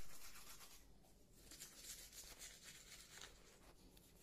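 Toothbrush scrubbing teeth: faint, quick scratchy brushing strokes.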